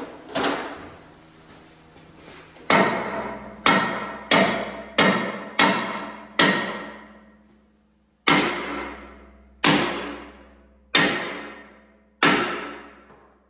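Heavy sledgehammer blows on the steel main dozer pivot pin of a John Deere 450C crawler, each one ringing out and fading. There are about ten strikes, a quick run at first and then slower, spaced swings. The pin is seized in its lower bushing and is being driven out.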